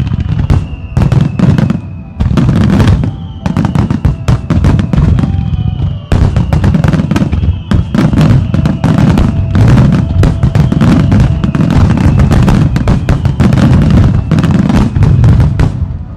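Dense barrage of aerial firework shells bursting, loud booms and crackles overlapping almost without a pause, with music playing under them.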